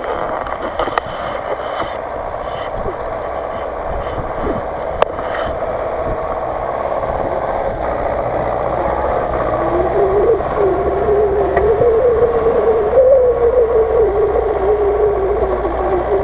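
GAZ-66 off-road truck on oversized tyres driving through deep snow, its engine running and getting steadily louder as it nears. A wavering whine comes in during the second half.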